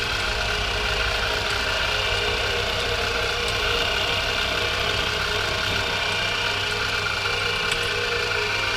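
Milling machine running steadily, a constant mechanical hum and whine while it mills slots.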